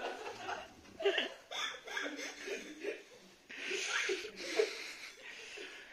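People laughing and chuckling in short bursts.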